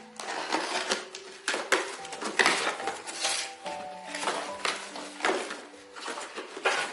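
Irregular clattering, knocking and rustling of hard objects being handled, over soft background music.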